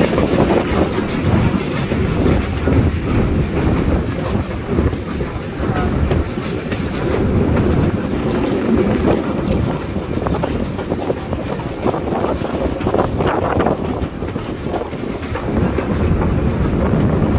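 A steam-hauled train of 130-year-old carriages running along the track, heard from a carriage window: a steady rumble and clatter of the wheels on the rails.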